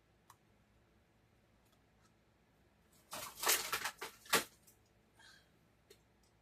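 Rustling and crinkling of doll packaging being handled, a burst of about a second and a half starting about three seconds in and ending in a sharp click, with a couple of faint rustles after.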